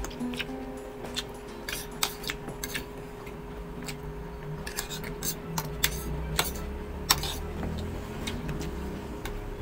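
Metal fork clicking and scraping against a plate of seafood and a bowl of dipping sauce, a run of sharp clicks, with chewing in between.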